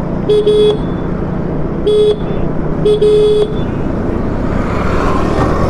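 Vehicle horn honking in short toots over steady road and engine rumble from riding in traffic: two quick toots, a single, then a longer double toot. Near the end a whooshing hiss rises, as of wind or a passing vehicle.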